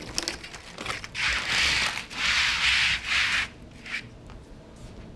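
Stiff plastic drainage mat (Schlüter TROBA-PLUS 8G) being slid and pressed flat by hand, a scraping rustle in two long strokes about a second in, then a brief one.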